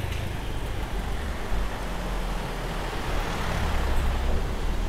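Motor scooter traffic noise on a street, steady, swelling briefly about three and a half seconds in.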